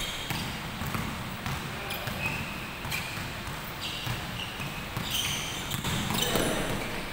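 Basketball being dribbled on a hardwood gym floor, bouncing at an irregular pace. Short high-pitched sneaker squeaks come in over the last few seconds.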